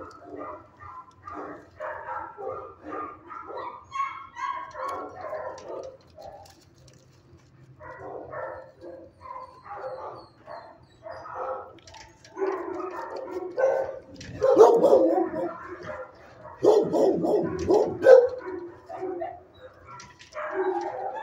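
Shelter dogs barking in their kennels: an almost unbroken run of barks, with a short lull about six seconds in and the loudest barking a little past the middle.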